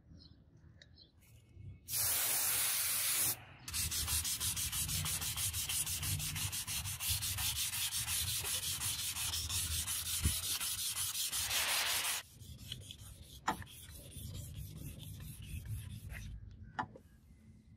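P400 sandpaper on a sanding block rubbed by hand along a steel sword blade, in quick, even back-and-forth strokes. It starts about two seconds in, pauses briefly, then runs loudly until about two-thirds of the way through before dropping to softer rubbing.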